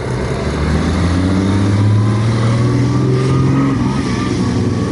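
Vintage Ferrari V12 engine running at a low, fairly even speed as the car is driven slowly, its pitch wavering slightly.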